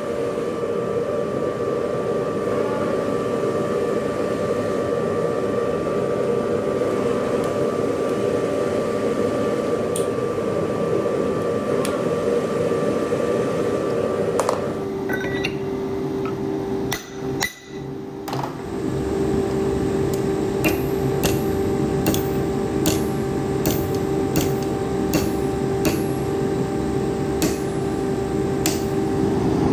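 Forge fire burning with a steady rushing noise and hum. In the second half, a hammer strikes red-hot steel on an anvil in a regular series of blows, a little under two a second.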